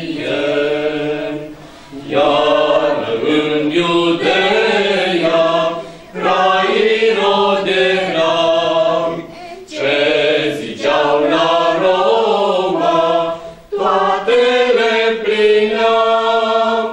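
A mixed group of children and adults singing a Romanian Christmas carol (colindă) unaccompanied, in sung phrases of about four seconds with short breaks between them.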